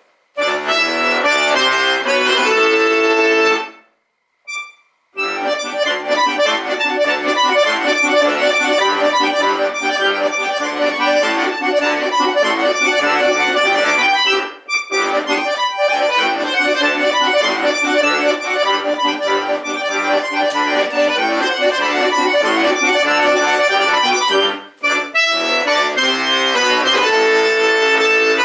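Accordion playing a tune, stopping for a moment about four seconds in before carrying on.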